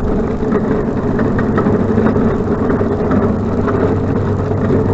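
A vehicle running steadily on the road, with a low, even engine hum and many small irregular rattles and clicks over it.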